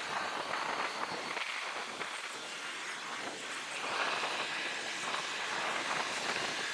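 Steady outdoor machinery and traffic noise, with a faint high whine joining about four seconds in.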